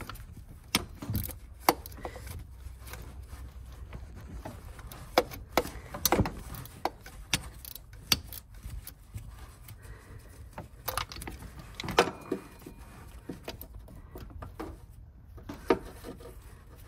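Irregular metallic clicks and clinks of hand tools undoing the 8 mm bolts on an engine's thermostat housing, over a low steady hum.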